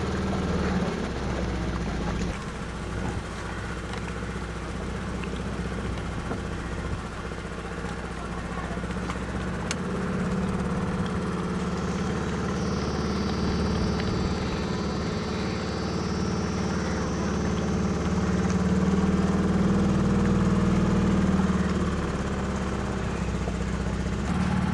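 Boat engine running steadily at cruising speed, a continuous drone that grows slightly louder about halfway through. A faint high thin whine sounds over it for a few seconds in the middle.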